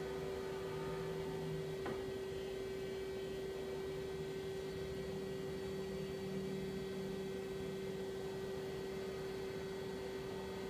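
Daewoo Puma 12L-B CNC lathe running under power: a steady hum at one pitch, with a lower hum joining about five seconds in and a single click about two seconds in.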